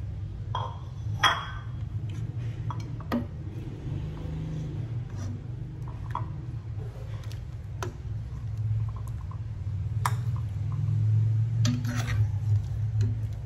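Metal ladle and utensil clinking and knocking against a cooking pot and a ceramic bowl while cooked moringa pods are scooped out of the broth. The clinks come irregularly, every second or two, over a steady low hum.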